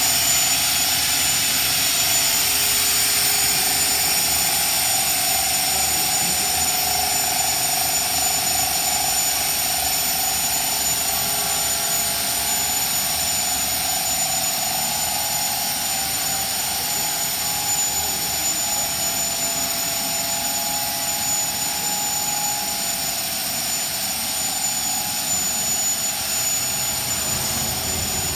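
A Mikrosan conical twin-screw extrusion line running steadily while it produces wood-plastic composite deck profile. Its motors, pumps and calibration unit make an even hiss with a steady mid-pitched whine and a thin high tone on top.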